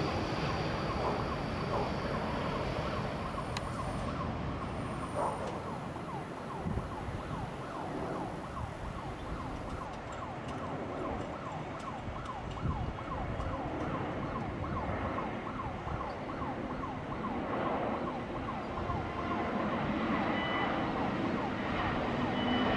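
Twin-engine jet airliner on final approach, a steady engine rumble, with a fast rising-and-falling siren wail running through the middle stretch.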